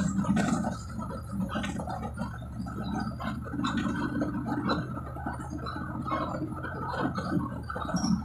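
Cabin noise inside a moving city bus: the engine's steady low drone under constant small clicks and rattles.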